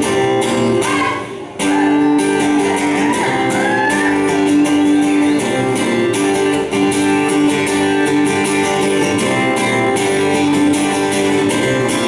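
Live country music instrumental break: guitars playing sustained chords and notes with no singing. There is a brief drop in level about a second in, and a few bent or sliding notes a few seconds later.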